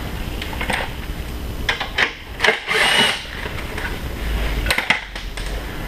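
Power drill fitted with a socket adapter, running in short bursts to back out the bolts that hold the drum sander's base to its shipping pallet; the longest run, about a second, comes in the middle, with a steady high whine. A few metal clicks and knocks from the socket and bolts come in between.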